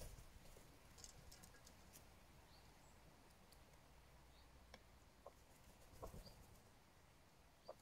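Near silence, broken by a few faint taps of a hooded crow's beak pecking food from a metal pan.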